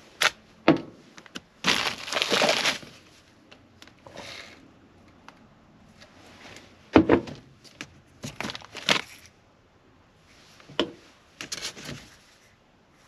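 Ingredients being handled on a kitchen counter: glass jars and plastic spice bottles picked up and set down in a string of separate clicks and knocks, with short stretches of plastic-bag crinkling while rummaging through a wicker basket.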